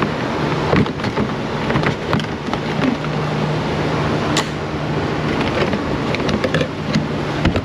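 Plastic wheel-well liner being worked out of a car's wheel arch: scattered clicks and scraping rustles over a steady low hum.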